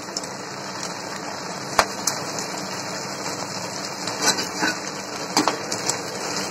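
Cornflour-coated pasta pieces, freshly dropped into hot oil, deep-frying in a pan: a steady sizzle with scattered sharp crackles and pops.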